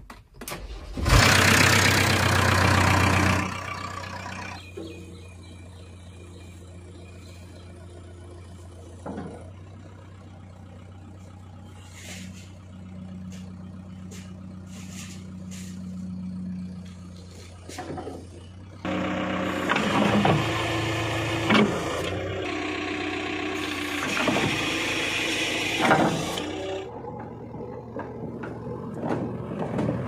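JCB 3DX backhoe loader's diesel engine being started on the key: it catches about a second in, runs loud for a couple of seconds, then settles to a steady idle. Later it runs louder, revving up and down, with several sharp knocks from the working machine.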